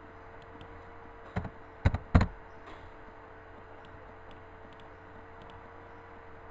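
Three sharp knocks between about one and a half and two seconds in, the last two louder and close together, over a steady hum.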